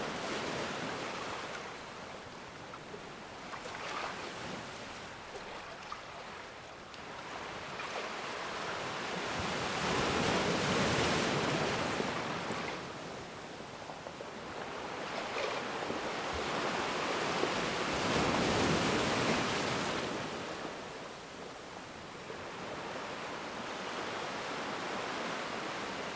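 Ocean waves breaking and washing on a shore, the surf swelling to two louder crests about ten and eighteen seconds in, with quieter lulls between.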